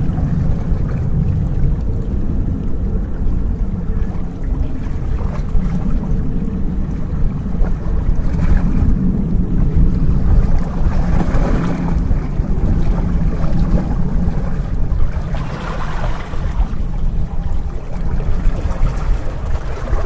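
Small seawater waves lapping and splashing against shoreline rocks, the splashing swelling twice, in the middle and again later. A steady low rumble runs underneath.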